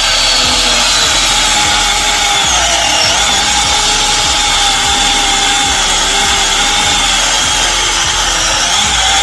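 Battery-powered 21-volt mini chainsaw running steadily as its chain cuts through a seasoned log, its electric motor whining with a slight waver in pitch as the chain bites into the wood.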